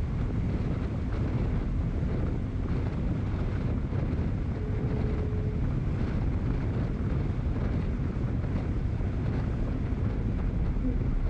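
Wind buffeting the microphone of a camera moving along a street, heard as a steady low rumble. A brief faint tone comes in about halfway through.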